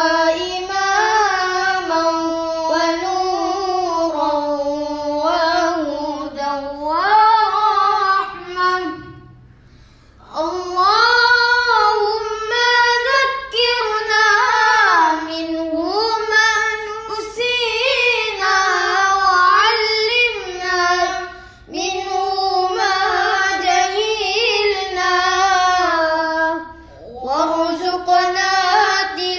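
A boy's solo voice chanting unaccompanied in long, ornamented melodic phrases, pausing for breath about nine seconds in, again about 22 seconds in and shortly before the end.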